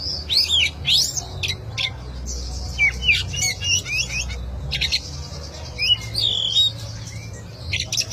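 Oriental magpie-robin singing: a lively run of quick whistled notes, sharp rising and falling sweeps and short chirps, broken by brief pauses, over a steady low hum.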